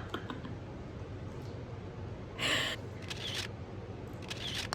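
Camera shutter clicks as pictures are taken: a short noisy snap about halfway through, then a few quick clicks that repeat about every second near the end.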